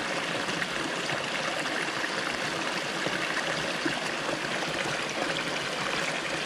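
Small rocky stream running over stones: a steady rush of water.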